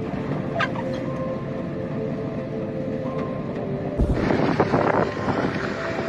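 Storm wind buffeting the microphone, with the running noise of a vehicle underneath. About four seconds in, the noise suddenly gets louder and harsher.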